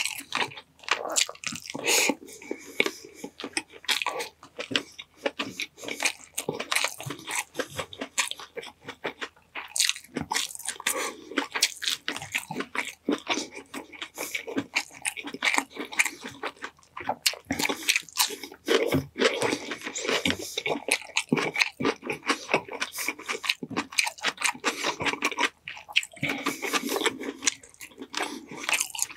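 Close-miked eating: a person biting and chewing a meal of honey-glazed chicken drumsticks, with dense, irregular mouth clicks throughout.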